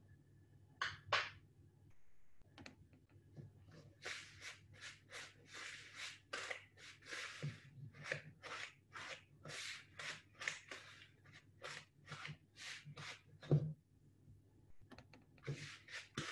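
Fork scraping and beating butter into brown sugar in a mixing bowl, working it into a sticky paste: short scraping strokes at about two to three a second, starting about four seconds in. There are a couple of knocks about a second in and a thump near the end.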